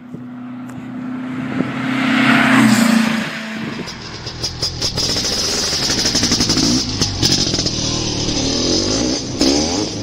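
A motor-vehicle engine revving, starting suddenly; it is loudest about two to three seconds in, then its pitch keeps swinging up and down.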